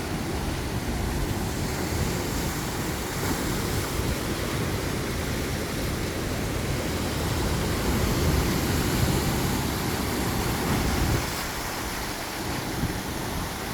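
Sea surf washing in steadily, with wind rumbling on the microphone; it eases for a moment near the end.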